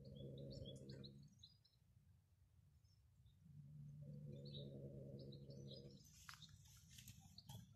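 A cat growling low over food in two drawn-out growls, the second lasting a couple of seconds, while small birds chirp faintly. Near the end come a run of soft clicks and ticks.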